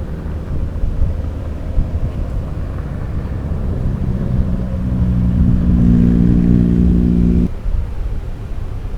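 Low rumble of a bus on the road. About halfway through, the bus's multi-tone telolet horn sounds a steady chord for about three seconds, then cuts off suddenly.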